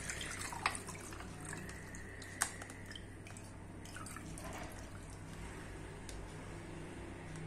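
Warm steeped drink dripping from a kitchen strainer into a cup after the pour: a quiet trickle with a few separate sharp drops.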